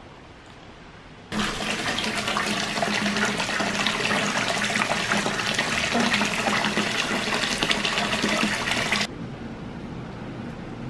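Water pouring from a tap into a bathtub, splashing and churning into the bathwater. It starts suddenly about a second in and drops to a softer, steady wash of water sound near the end.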